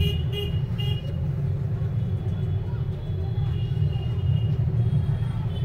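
A steady low rumble, with three short high-pitched beeps in the first second.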